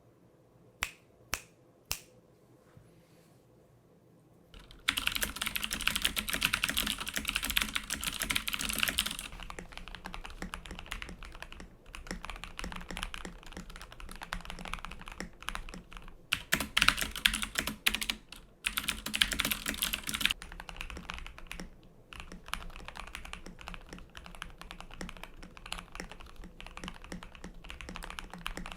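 Mechanical keyboard typing: three single key presses, then fast continuous typing from about five seconds in, with two louder, brighter stretches.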